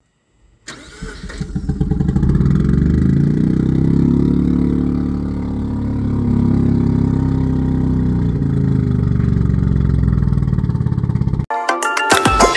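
Mazda RX-7 FC's 13B rotary engine started about a second in, catching raggedly and then running steadily, its pitch drifting a little up and down. It cuts off near the end as music begins.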